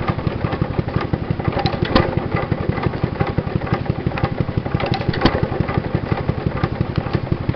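Amanco open-crank hit-and-miss stationary engine running steadily, its flywheels and open crank turning with a rapid, even beat, broken every second or two by a sharper, louder crack.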